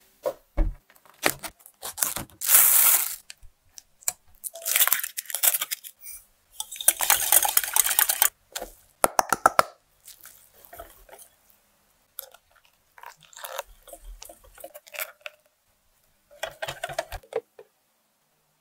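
Kitchen handling sounds in irregular bursts: the spiky husk of a durian being pried and torn open, then a wire whisk scraping and clinking in a glass bowl as flour is mixed into egg.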